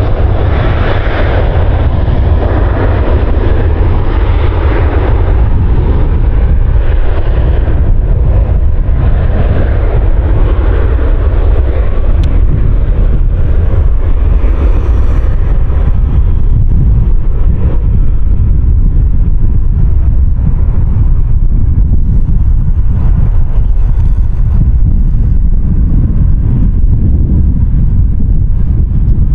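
Boeing 737 jet engines running loud for about the first eight seconds, then the sound changes to a deeper, steadier rumble of a Fokker 100's jet engines mixed with wind buffeting the microphone.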